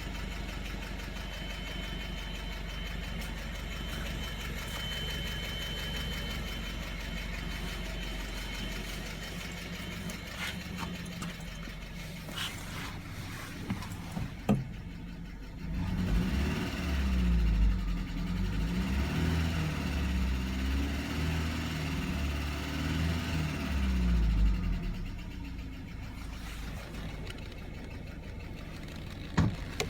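BMW 1 Series car engine idling, revved up and down several times around the middle, then settling back to idle. The owner hears a rattle from it and asks whether it is the timing chain.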